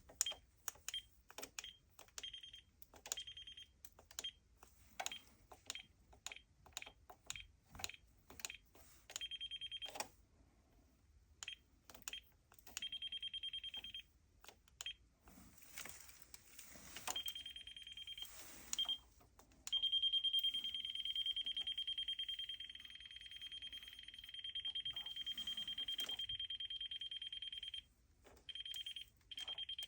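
Ames non-contact voltage detector pen beeping at a high pitch: short, irregular beeps for the first several seconds, then longer tones, settling into one steady continuous beep from about twenty seconds in until shortly before the end. The beep is its alert for sensing live voltage.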